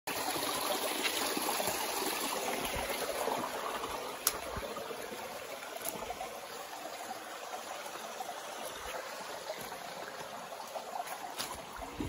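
Shallow mountain stream trickling steadily over rocks, a little louder in the first few seconds. There are a couple of sharp knocks, about four seconds in and again near six seconds.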